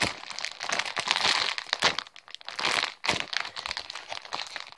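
Clear plastic packaging bag crinkling and crackling as a foam squishy toy is squeezed and handled inside it, in a busy run of short crackles with a brief lull past the middle.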